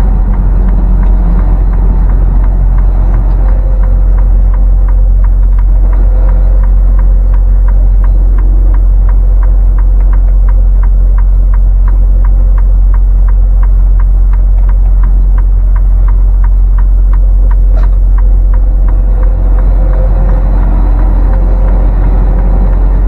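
Loud, steady low rumble of a semi truck's engine and road noise inside the cab while driving, with faint even ticking through the middle part.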